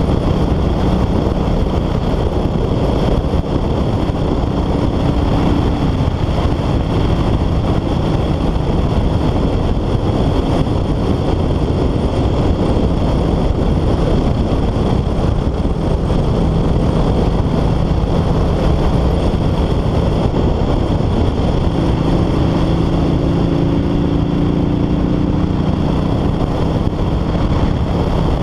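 Kawasaki Vulcan 900 Classic's V-twin engine running steadily at road speed, mixed with a constant rush of wind and road noise.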